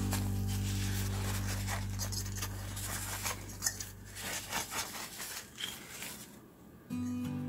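Tissue paper rubbing and scraping inside the plastic hub of a computer chassis fan's rotor in short, irregular wiping strokes, as the rotor and its shaft are cleaned. Background music fades out over the first couple of seconds and comes back near the end.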